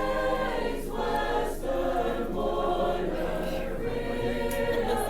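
A choir singing held notes in harmony, the chords changing about every second.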